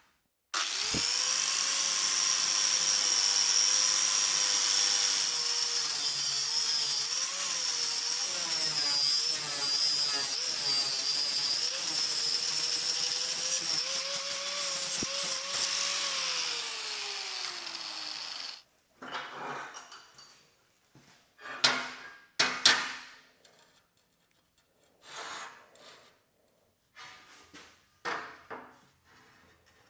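An electric power tool working steel runs at high speed for about eighteen seconds, its whine wavering in pitch under load, then winds down with a falling pitch. A few short scrapes and knocks of metal follow.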